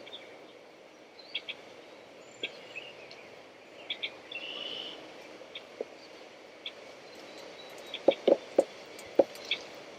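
Quiet outdoor ambience with birds chirping now and then, one brief trill about halfway through. Near the end come a few short, soft knocks.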